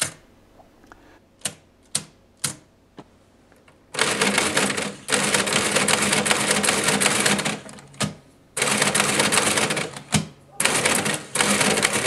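Monroe L-series electric adding machine (calculator): a few single key clicks as a number is set on the keyboard, then from about four seconds in the motor-driven mechanism clattering through repeated adding cycles in several runs of one to three seconds with short pauses between them, a multiplication being done by repeated adding.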